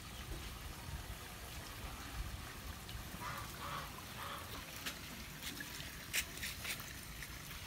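Steady trickling of water, with a few sharp clicks a little past the middle.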